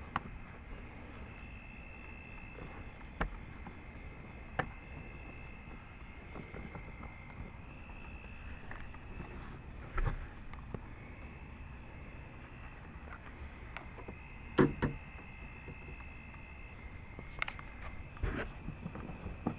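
Scattered clicks and knocks of hands twisting a bulb socket into a 2002 Chevrolet Impala's license plate lamp housing, the loudest about two-thirds through. A steady high insect trill runs underneath.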